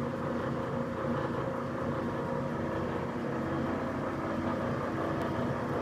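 Hardinge turret lathe running steadily: a constant machine hum with several steady tones in it.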